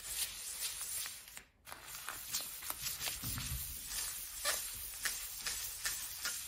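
Inkjet printer printing a sheet: an irregular run of clicks and ticks, a few a second, from the print head and paper feed as the page advances. It breaks off briefly about one and a half seconds in.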